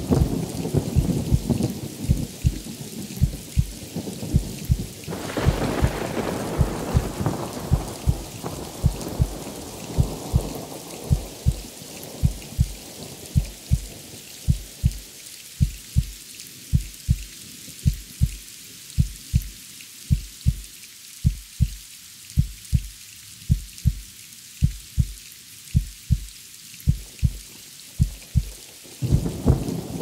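A slow, steady heartbeat, its paired lub-dub thumps coming about once a second, over steady rain. Thunder rolls in at the start, again more strongly about five seconds in, fading over several seconds, and once more near the end.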